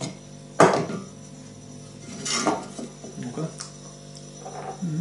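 Metal bread tin knocked against the table while a baked loaf is turned out of it: one loud, sharp metallic clatter a little after the start, then a softer clatter about two seconds later and a few light knocks.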